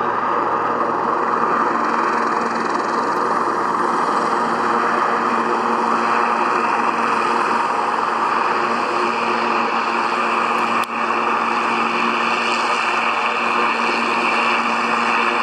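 Piper PA-46 Malibu's turbocharged six-cylinder piston engine and propeller at climb power, a steady drone as the plane climbs out after takeoff.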